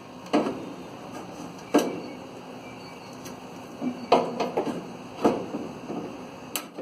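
Sharp clicks and knocks of hand tools and dryer parts being handled, a handful of separate hits at irregular intervals with a quick cluster about four seconds in.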